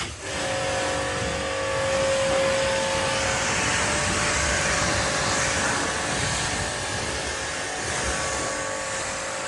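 Pressure washer running, its jet spraying water in a steady loud hiss over a faint motor whine, switched on suddenly at the start.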